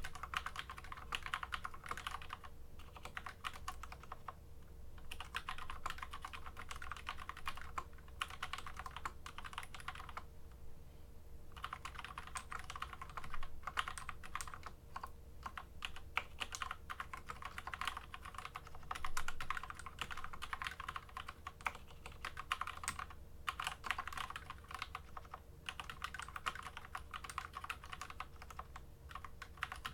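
Custom-tuned SteelSeries Apex M500 mechanical keyboard being typed on in fast, continuous runs of key clicks, broken by a couple of pauses of about a second.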